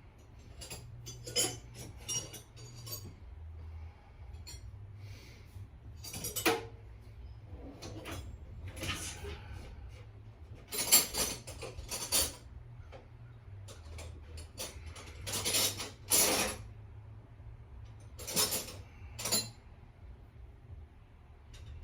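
Metal hand tools clinking and clattering as wrenches are handled and picked out: a series of sharp clanks and scrapes, the loudest about halfway through and again a few seconds later.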